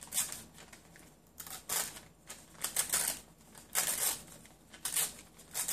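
A small piece of paper being torn and rustled by hand in a string of short, crisp bursts, repeating every half second to a second.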